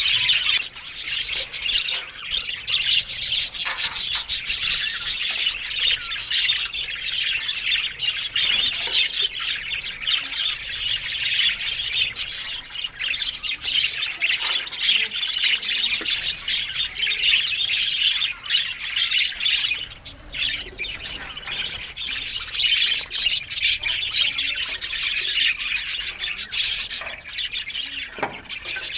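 A colony of budgerigars chattering and chirping continuously, many birds at once.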